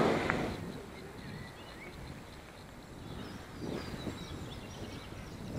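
A passing car's noise fades out in the first half-second. Then comes a quiet outdoor background with birds chirping.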